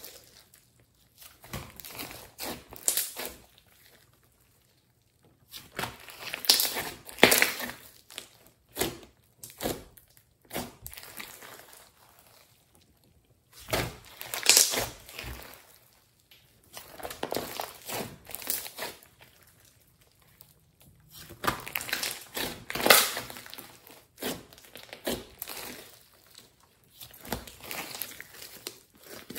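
Thick glossy slime mixed with clay being squeezed, stretched and folded by hand: wet squishing with crackles and pops of trapped air. It comes in bursts of a few seconds with short pauses, the loudest near the middle as a large air bubble is worked in the slime.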